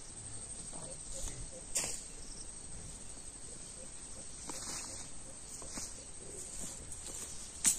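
Insects chirring in a steady high tone, with a few scattered rustles and soft knocks; the loudest is a short, sharp rustle near the end.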